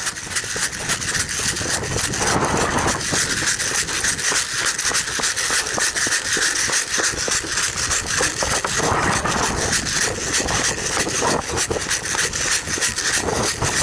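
A player running with kit close to the microphone: fast, repeated footfalls mixed with gear rubbing and rattling, steady throughout.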